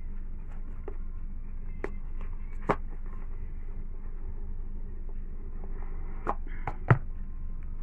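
Phone box and packaging being handled and pried open: a few scattered sharp clicks and taps, the sharpest about seven seconds in, over a steady low hum.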